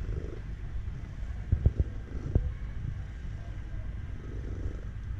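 Orange-and-white cat purring steadily as it is stroked, a low rumble. A few soft knocks come about a second and a half to two and a half seconds in.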